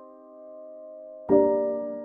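Background music: a slow piano piece, a held chord fading, then a new chord struck about a second in and ringing out.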